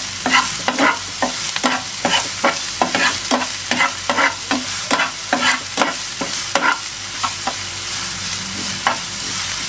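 Chopped onions sizzling in hot oil in a frying pan while a flat spatula stirs and scrapes them across the pan, about two to three strokes a second, the stirring thinning out after about seven seconds.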